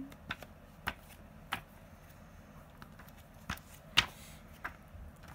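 Pages of a thick, glossy Hobby Japan magazine being flipped by hand: a series of short paper flaps and rustles, the loudest about four seconds in.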